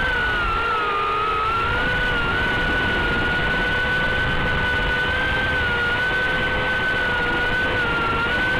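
Brushed motors and propellers of a tiny whoop quadcopter whining steadily in flight, the pitch wavering slightly with throttle.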